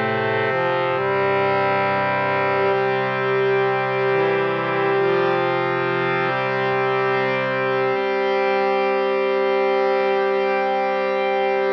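Saras 32 harmonium playing held chords, its reeds sounding steady, sustained notes that change every second or two. The lowest notes drop out about eight seconds in.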